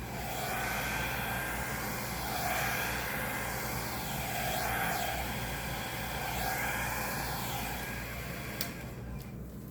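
A compact 1000-watt travel hair dryer blowing steadily, a rushing airflow with a faint whine, swelling and easing slightly before it stops near the end.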